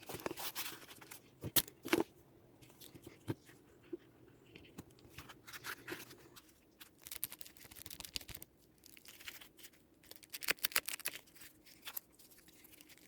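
Hands working small objects at close range: uneven scratching and rustling with scattered sharp clicks, busiest about a second and a half in and again near the end.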